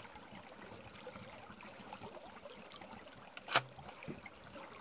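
Faint trickling and small splashes of a shallow creek's water, with one sharp knock about three and a half seconds in.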